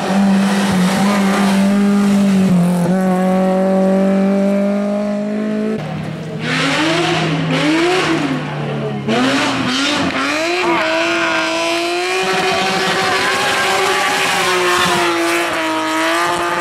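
Racing car engines at high revs, one after another through a hairpin. The first holds a steady note, then climbs slowly in pitch as it accelerates away. The revs of the next cars rise and fall through the corner, with short wavering dips, as the drivers come off and back on the throttle.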